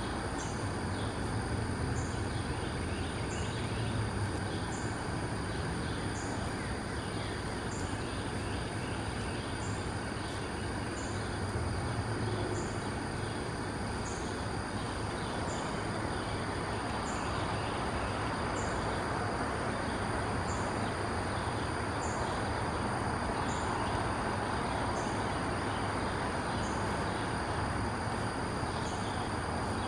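Outdoor ambience: a steady low rumble under a wash of background noise, with a short high-pitched chirp repeating evenly about every second and a half.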